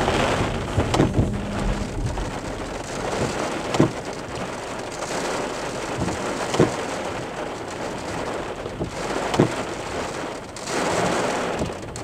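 Heavy downburst rain drumming on the car, heard from inside the cabin, with a handful of sharp single knocks on the body.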